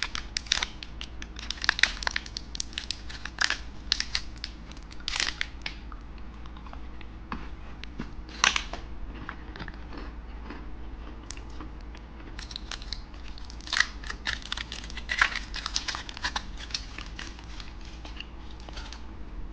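Plastic candy wrapper crinkling and tearing as it is handled and opened, in many short, irregular crackles.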